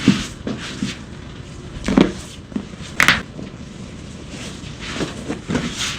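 Joints cracking during chiropractic manipulation: a series of sharp pops and thuds, the loudest near the start, about two seconds in and about three seconds in, with smaller knocks and shuffling between.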